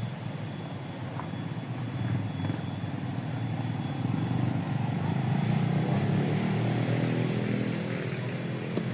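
A small engine running steadily, getting louder from about halfway through and easing off near the end.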